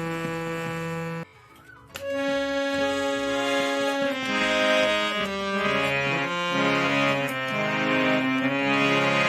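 Harmonium reeds sounding: one note is held for about a second and stops, then after a short pause several notes and chords are played in succession.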